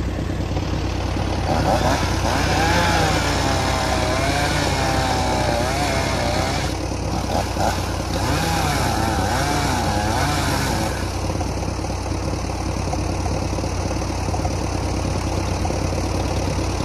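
Vintage half-track tractor engine idling steadily. Over it, from about two seconds in until about eleven seconds, a higher sound wavers up and down in pitch, then stops.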